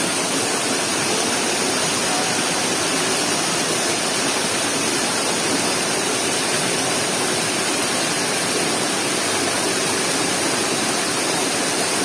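Small waterfall rushing steadily over rocks, water cascading down a rocky chute.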